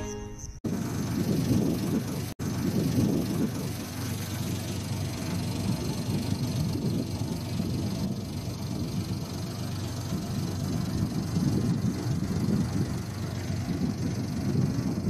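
Music cuts off just after the start, then wind rumbles on the microphone outdoors: a loud, constantly flickering low noise with a brief dropout about two seconds in.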